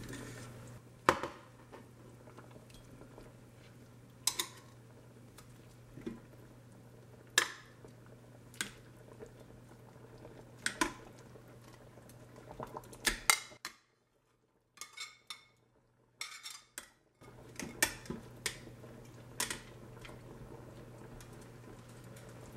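Metal utensils clinking against the stainless steel inner pot of an Instant Pot and a ceramic plate: a dozen or so separate sharp clinks, spaced a second or more apart, over a low steady hum. It is briefly almost silent about two-thirds of the way through.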